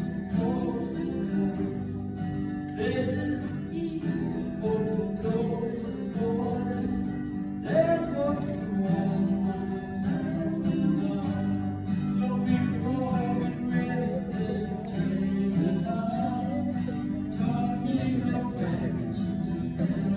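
A song performed live: acoustic guitar strummed under a voice singing a hymn.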